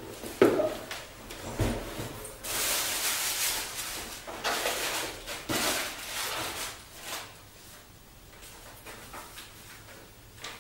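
A large cardboard shipping box and its packaging being handled: a couple of knocks and a dull thud, then several seconds of scraping and rustling as it is moved, fading to faint small handling sounds with a sharp click near the end.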